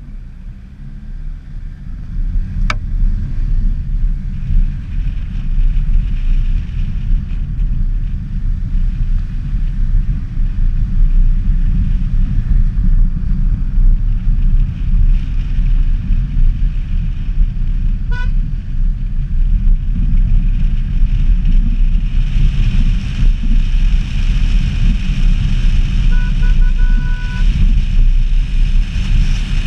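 Wind buffeting an action camera mounted on the outside of a moving Peugeot 106, heard as a loud, steady low rumble mixed with the car's road noise. It builds over the first couple of seconds.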